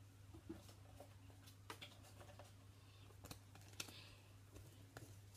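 Faint, scattered clicks and taps of trading cards being handled, sorted and set down by hand, over a low steady hum.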